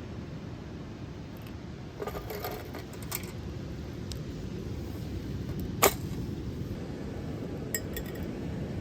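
A few light clinks of small hard objects, with one sharp click about six seconds in, over a steady low rumble.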